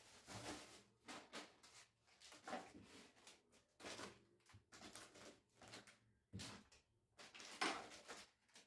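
Faint, irregular rustling and crinkling of plastic bags and food packets being handled and sorted by hand, with the loudest rustle near the end.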